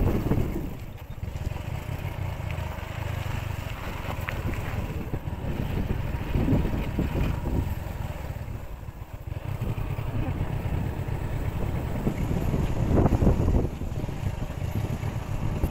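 A vehicle travelling along a road, its engine running under a low, uneven wind rumble on the microphone.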